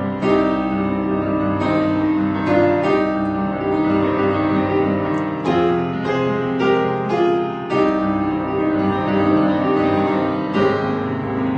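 Alexander grand piano, the world's longest, being played: sustained chords with a melody line above, fresh notes struck every second or so and left to ring.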